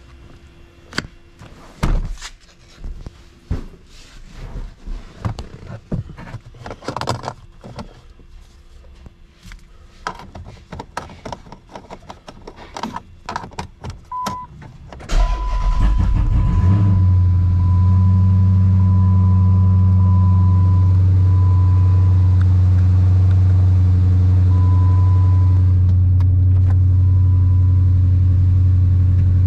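Clicks and knocks of handling inside the car's cabin, then about halfway through the 2011 Dodge Challenger's 6.4-litre HEMI V8 starts, flares up briefly and settles into a steady, loud idle, heard from inside the cabin. A steady high tone sounds on and off over the idle.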